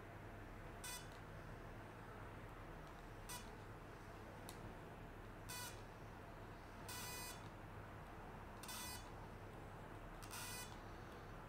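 Handheld electro-acupuncture stimulator pen beeping faintly during electrical stimulation through a dry needle: about seven short electronic beeps, irregularly spaced one to two seconds apart, a few of them drawn out into longer buzzes.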